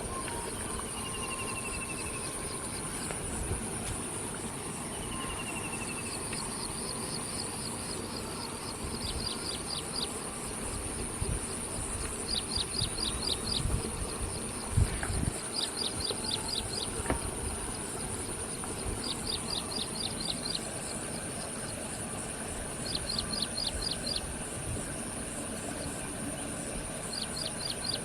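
Insects in the open: a steady high-pitched whine with short, rapid chirping trills repeating every three or four seconds, and two brief falling bird calls in the first few seconds. Under them runs low rumbling noise with a few dull thumps about halfway through.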